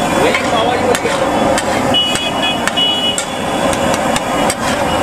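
Flat metal spatula clacking and scraping on a large flat griddle as pav bhaji is mashed and stirred: sharp, irregular knocks several times a second over busy street noise and voices.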